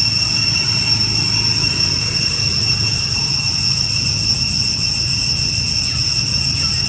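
A steady, unbroken high-pitched whine holding one pitch with a higher overtone, over a low, even rumble. No animal calls stand out above it.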